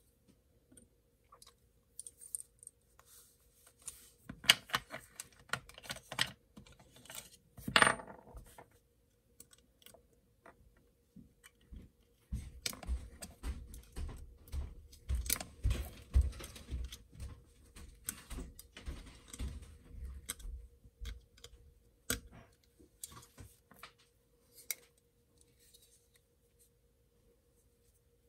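Small metal parts of a folding knife clicking and clinking as they are fitted together by hand during reassembly, with a louder click about eight seconds in and a run of dull knocks against the work surface in the middle.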